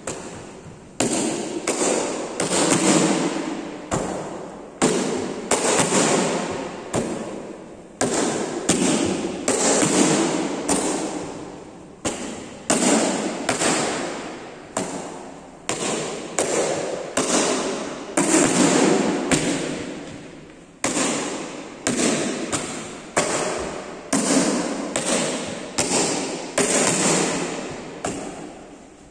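Bare foot kicks slapping taekwondo kick paddles in rapid succession, about two sharp smacks a second, each ringing out with room echo.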